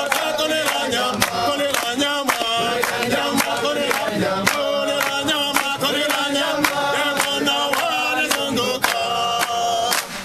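A group of men singing together in chorus, with steady hand clapping about twice a second. The singing stops just before the end.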